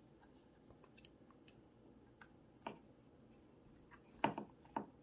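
Faint clicks and taps of a hex key working the screws of a pistol-slide compensator as they are loosened, with a few sharper clicks about four seconds in.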